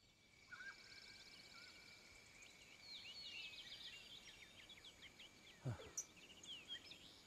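Faint birdsong: many short chirps and twitters over a steady thin high tone, with a quick trill about a second in. A brief sound drops steeply in pitch about five and a half seconds in.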